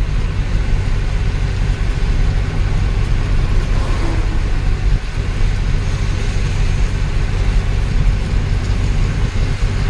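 Inside the cab of an Ashok Leyland Ecomet 1214 truck driving along the highway: a steady low engine drone and road rumble.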